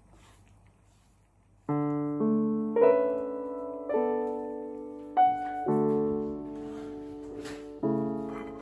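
Background piano music coming in about two seconds in: a slow melody over held chords, each note struck and left to fade.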